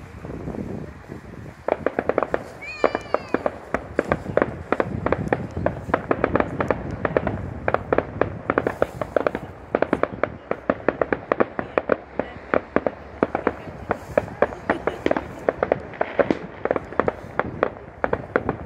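Aerial fireworks bursting overhead: a dense, continuous run of rapid sharp pops and crackles, many per second, starting about two seconds in.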